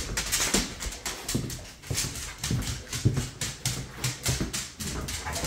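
A dog making short low noises amid a run of quick footsteps and clicks on a hard laminate floor.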